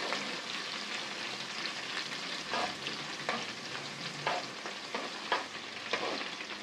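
Sliced onion sizzling in hot oil with garlic and cumin as it is lightly sautéed and stirred, the utensil knocking against the pan about once a second from midway on.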